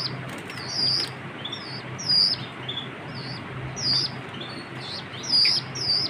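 A cage of young jal chicks giving repeated short, high, downward-slurred begging calls, one every half second or so, as they gape for food. Wings flutter with a few sharp clicks in the first second, and a steady low hum runs underneath.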